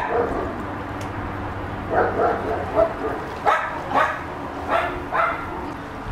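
Small dog barking and yipping in short, sharp calls, about seven of them coming roughly every half second to second from about two seconds in.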